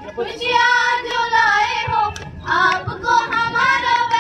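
Girls' high voices singing a melody in long held phrases, with a short break about two seconds in.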